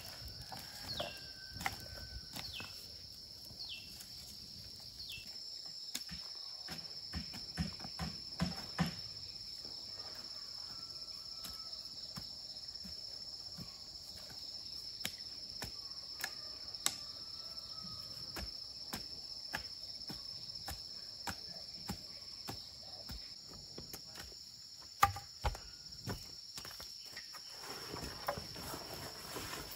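Steady high-pitched drone of insects, with irregular thuds of a hoe chopping into soil.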